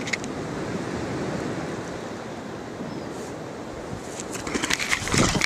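A steady rushing outdoor noise, with a run of louder crackles and rustles near the end.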